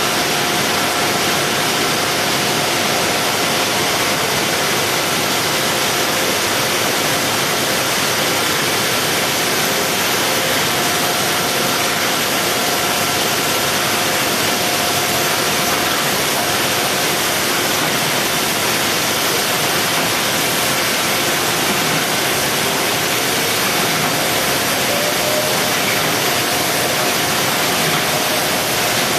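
Steady machinery noise of a box-palletizing line: conveyors and a robotic palletizer running, a dense even hiss with faint steady whines. A faint rising whine comes in about two-thirds of the way through.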